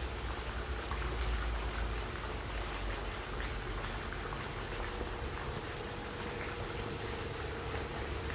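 Wind buffeting the microphone: an uneven low rumble over a steady hiss of outdoor noise, the rumble strongest in the first couple of seconds and easing after, with a faint steady hum underneath.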